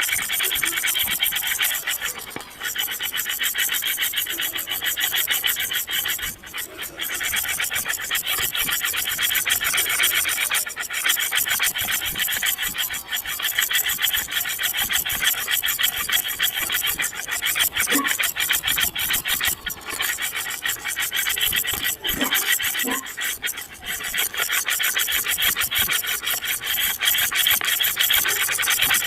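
Continuous rasping, scraping noise, fast and grainy, like something being filed or rubbed, with a few brief dips.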